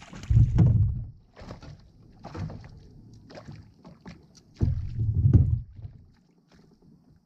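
Handling noises aboard a fishing kayak while a small smallmouth bass is reeled in and landed: two loud low rumbling bumps, about half a second in and about five seconds in, with scattered short sharp ticks and splashes between them.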